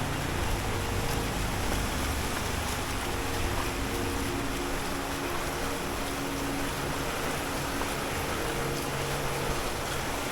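Wet-street traffic ambience: a steady hiss of water, from tyres on wet pavement or light rain, with the hum of vehicle engines running underneath, heavier at the start.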